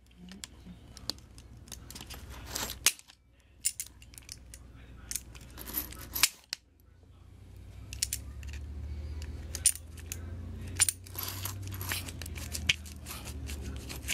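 Scattered sharp metallic clicks and clinks of pliers and small metal parts while a stuck C-hub is worked off an RC drift car, with a low handling rumble in the second half.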